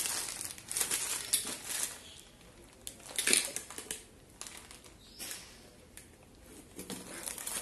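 Clear plastic wrapping crinkling and rustling as it is pulled off a stainless steel spice box, in uneven bursts that are loudest in the first two seconds and again about three seconds in, then quieter picking at the plastic film.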